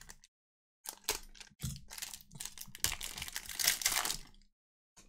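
Foil wrapper of a Prizm football card pack being pulled open by hand, crinkling and crackling in a run of rustles. It starts about a second in, is loudest just past the middle, and stops shortly before the end.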